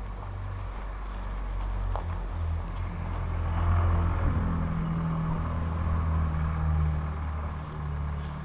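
A motor vehicle's engine running nearby, a low steady hum that grows louder about three seconds in and then holds.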